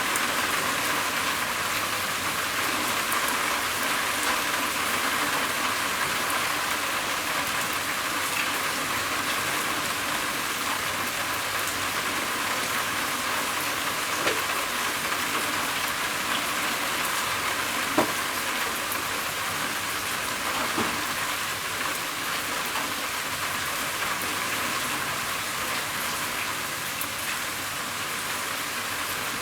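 Steady rain falling on a roof, an even patter with a few louder single drop hits.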